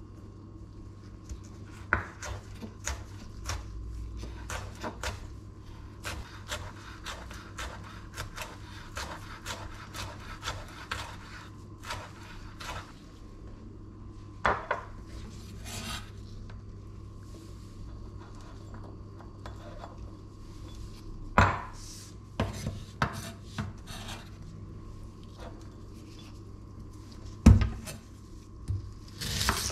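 A chef's knife chopping on a wooden cutting board: a quick run of blade strikes for about ten seconds, then scattered knocks and scrapes. A few louder thuds come later, the loudest a couple of seconds before the end.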